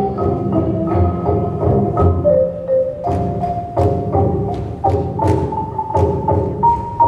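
Salvadoran folk dance music: a melody of held notes over percussion, with sharp beats about twice a second from about three seconds in.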